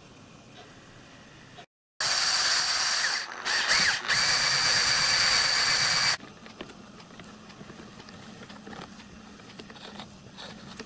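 A loud, steady rushing noise for about four seconds that cuts off suddenly. It is followed by small metallic clicks and ticks from a miniature lathe's hand-cranked brass gears and leadscrew mechanism being turned.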